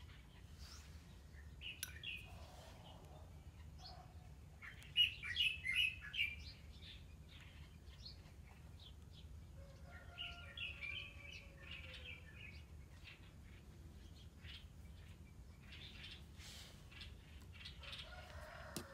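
Small birds chirping in a few short bursts of quick high chirps, over a steady low background hum.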